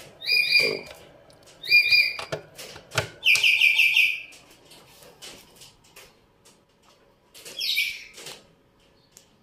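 A bird chirping: two short high calls in the first two seconds, a longer trilling call a little after three seconds in, and one more short call near the end, with a few faint clicks between them.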